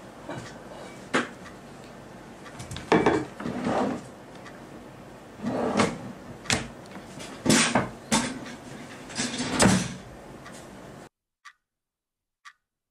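Irregular knocks and bangs, like drawers or cupboards being handled, over a steady hiss. Everything cuts off suddenly about eleven seconds in, leaving faint single ticks about once a second.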